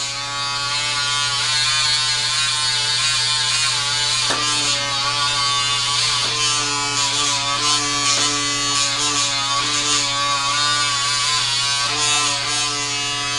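PMD Personal Microderm's suction motor running with a steady electric buzz as the wand is moved over the skin; its pitch shifts a few times.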